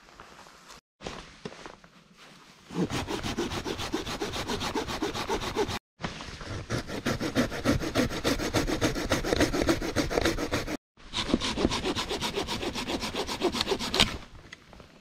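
Small folding hand saw cutting through a dead fallen log in rapid back-and-forth strokes, hard going for so short a blade. The sawing starts about three seconds in and comes in three stretches, each cutting off suddenly.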